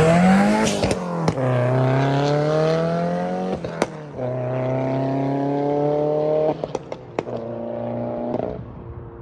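Turbocharged Subaru WRX flat-four engine accelerating hard through the gears. Its pitch climbs, then drops at shifts about a second in, near four seconds and near six and a half seconds, with sharp cracks around the shifts, and it fades near the end.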